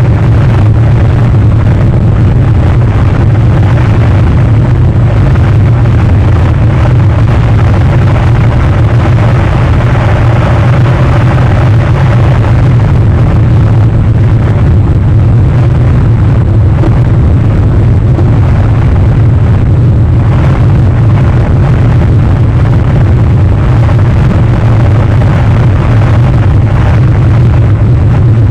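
Loud, steady rumbling noise, heaviest in the low range, with no breaks.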